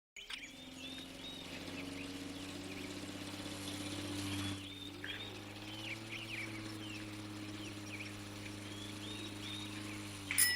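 Small birds chirping repeatedly over a low, steady hum, with a sharp click and a ringing tone near the end.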